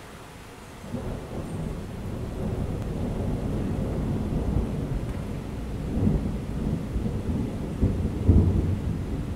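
Thunder from a small thunderstorm rumbling low over steady rain. It sets in about a second in, swells, and peaks twice near the end.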